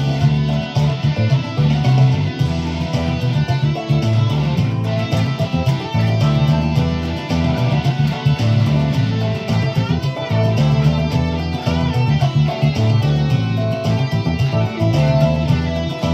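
Music played on an electric guitar, with a strong low bass line under it.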